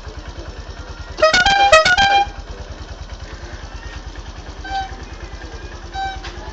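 A musical multi-tone vehicle horn of the telolet kind plays a quick run of changing notes for about a second, starting about a second in, over an engine idling with an even low pulse. Two short, quieter horn notes follow later.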